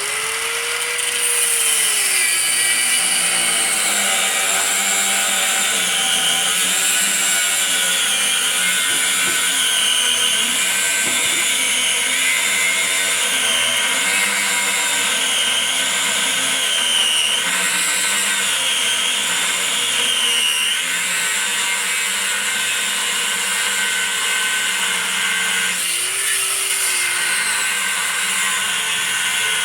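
Power cutting tool, likely an angle grinder with a cut-off wheel, cutting through a steel van frame rail. The motor spins up at the start, then runs continuously with a high whine that wavers as the wheel bites. About 26 seconds in it eases off and picks up again.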